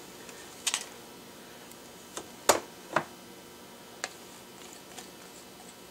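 A few short clicks and taps of a utensil against containers as crunchy peanut butter is scooped out, about five in all, the loudest two about two and a half and three seconds in.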